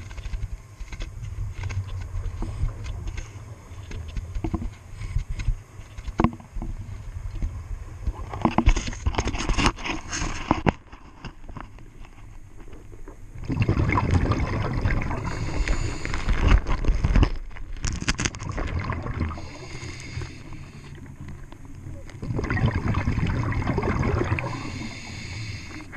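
Scuba diver breathing underwater through a regulator: three long spells of exhaled bubbles rushing past the camera, over a low rumble.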